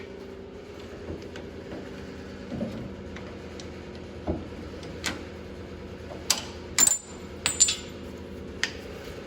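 Metal hand tools and parts clinking and tapping during work on a car's rear suspension, with a few sharp metallic knocks that ring briefly, mostly in the second half. A steady hum runs underneath.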